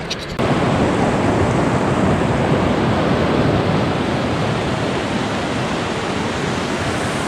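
Mountain river rushing and splashing over boulders, a steady loud rush of water that comes in abruptly about half a second in.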